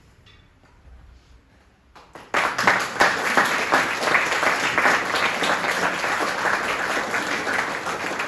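Audience applauding. It breaks out suddenly a couple of seconds in, after a short hush, and then holds steady.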